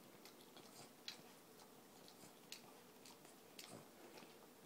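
Faint wet clicking of a Boston terrier licking in and around another dog's mouth: irregular smacks about twice a second, the loudest about a second in.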